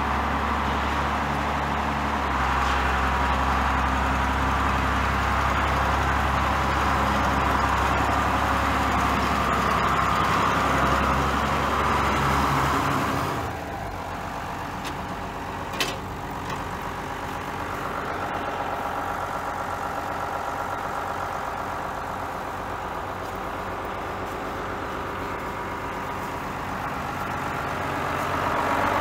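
Tractor engine running steadily. Its note and loudness drop about halfway through, there is one sharp click a couple of seconds later, and the engine climbs again near the end.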